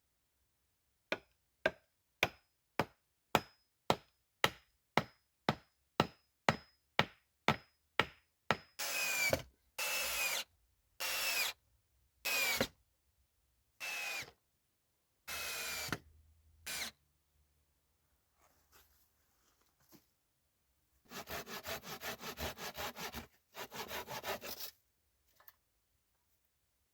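Woodworking by hand. First comes a steady series of about fourteen sharp strikes on wood, about two a second. Then a saw cuts through wood in about eight long strokes. Near the end there is a quicker rasping run of short strokes.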